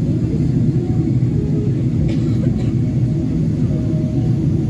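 Steady low cabin drone of a Boeing 777-300ER in flight, the GE90 engines and airflow heard from inside the economy cabin. A couple of faint clicks about two seconds in.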